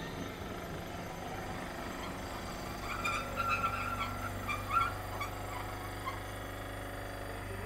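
Vintage electric tram running on its track, a steady low hum with brief high wheel squeals between about three and five seconds in.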